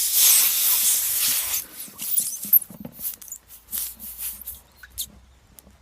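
Air hissing out of the tyre's puncture hole, cutting off about a second and a half in as a sticky string repair plug is forced into the hole on its insertion needle. After that come small knocks and strained grunting from the effort of pushing.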